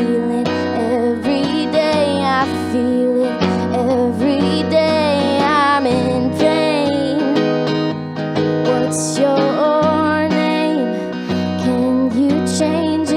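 Live acoustic song: a woman singing a wavering melody line over a strummed acoustic guitar.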